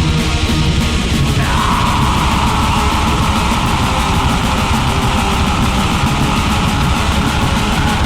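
Orchestral-symphonic black metal: a dense wall of distorted guitars and drums, with a sustained higher melody line coming in about a second and a half in.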